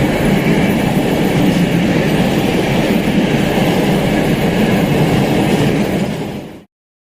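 Train running along the track: a loud, steady rumble of wheels and wagons that cuts off suddenly about six and a half seconds in.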